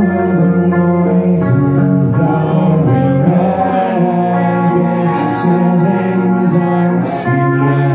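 Live rock band playing loud through a club PA: electric guitar and bass guitar hold long chords that change every second or two over drums, with several cymbal crashes.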